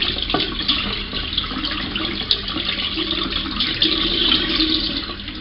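Bathroom sink tap running hot water into the basin, a steady rush of water.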